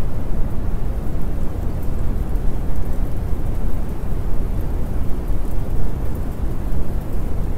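Steady, dense noise heaviest in a deep rumble, with no tune, voice or rhythm: an ambient masking track of the rain-and-thunder kind laid under subliminal audio.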